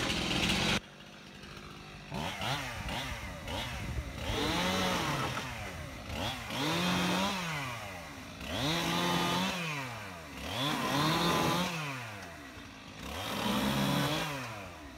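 Stihl chainsaw cutting up an oak limb: after a short loud burst at the start, the engine revs up and drops back about five times, roughly every two seconds, as each cut is made.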